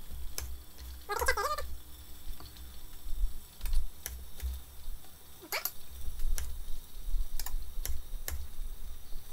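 Kitchen knife slicing tomatoes on a wooden cutting board: scattered taps of the blade on the board. About a second in, a short wavering call rises and falls.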